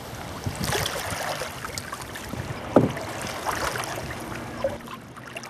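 Canoe paddle strokes in the water, splashing and dripping, with a sharp knock about three seconds in.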